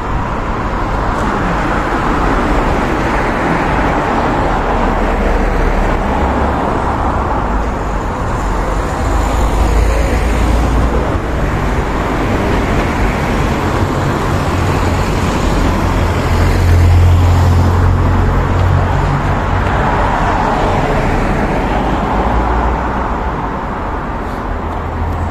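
Road traffic on a street: a continuous low rumble of tyre and engine noise, swelling several times as cars pass close by.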